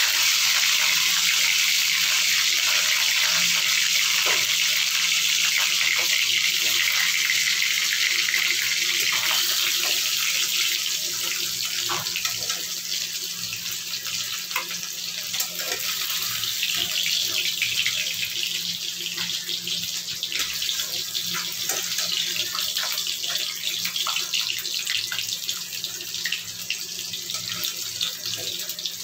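Fish pieces deep-frying in hot mustard oil in a kadhai: a loud steady sizzling hiss that eases a little about ten seconds in, with scattered pops and clicks as a spatula works the browned pieces.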